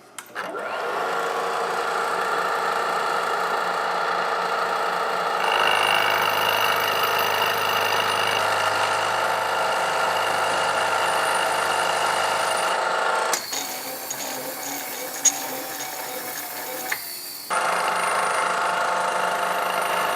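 Machine tool running steadily as it cuts metal from a piston to bring its weight into balance. It holds a steady pitch and changes pitch and level abruptly about five, thirteen and seventeen seconds in.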